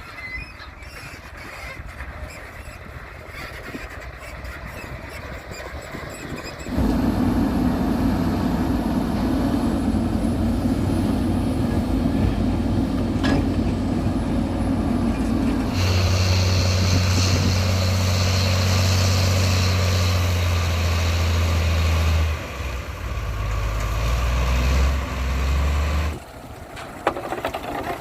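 Diesel engines of heavy construction machinery running under work, the sound changing abruptly several times as one machine gives way to another. It is quieter at first and much louder from about seven seconds in, with a steady low engine hum in the middle stretch.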